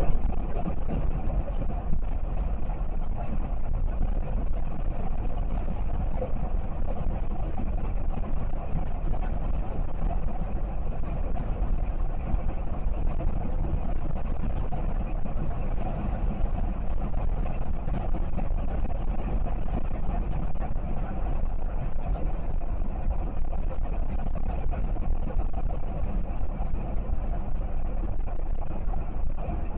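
Steady road and engine noise heard from inside a moving car's cabin, a constant low rumble with no sudden events.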